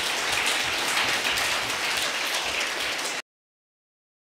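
Audience applauding, many hands clapping together, cutting off abruptly a little over three seconds in.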